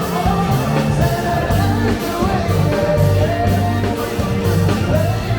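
Live funk and soul band playing, a singer's voice over held bass notes.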